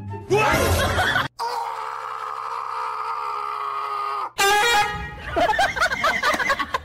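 Edited-in comedy sound effects. A short burst of wavering sound, then a steady horn-like tone held for about three seconds, then more warbling, wavering sounds.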